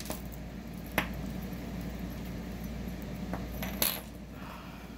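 Small metal jewelry pieces clinking and tapping against each other and the wooden table as a tangled clump is pulled apart by hand: a sharp click about a second in and a short cluster of clinks near the end.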